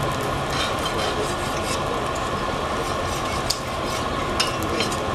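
Blacksmith's forge fire burning under its air blast: a steady hiss with a faint hum, crackling, and a few light metal clicks. A piece of steel is heating in the fire toward welding heat.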